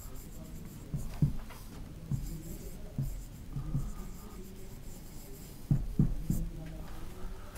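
Marker pen writing on a board in short, irregular scratching strokes as words are written out.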